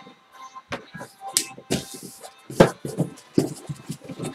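Cardboard boxes being handled and set on a tabletop: scattered knocks, a louder thump about two and a half seconds in, and short scraping, sliding sounds, with music playing.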